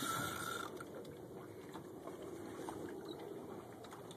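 Steady low rumble of a fishing boat at sea, its engine and the water around the hull, with a few faint clicks.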